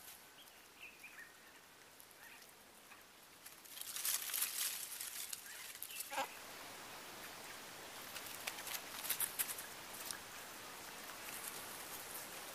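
Quiet outdoor ambience of faint crackling rustles, which grow busier about four seconds in. A few faint high chirps come in the first two seconds, and a short falling animal call sounds about six seconds in.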